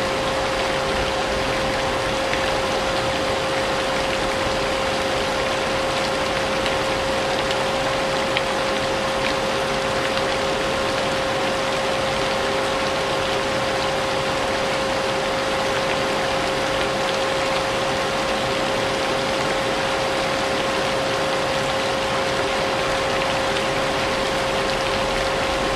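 Vacuum cleaner running steadily with a constant whine, mixed with the even hiss of falling rain.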